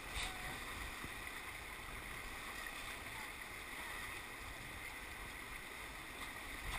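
Steady rush of Klickitat River whitewater around an inflatable raft, with a short knock near the start.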